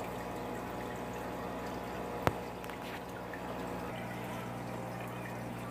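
Aquarium filter water trickling and splashing steadily, over a low hum. There is a single sharp click about two seconds in.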